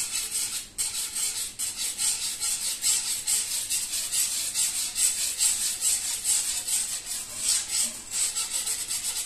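Metal wire whisk beating hot water and liquid black soap in a saucepan: rapid, rhythmic scratchy swishing of the wires against the pan, about three to four strokes a second.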